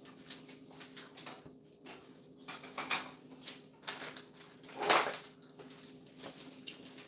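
Scattered light clicks and knocks of things being handled off to one side, with one louder knock about five seconds in, over a faint steady hum.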